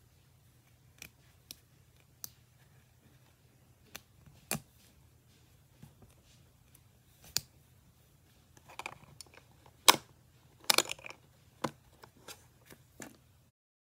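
Plastic Lego pieces being handled and pressed together: scattered sharp clicks and small clatters, with a denser, louder run of clicks about two-thirds of the way through.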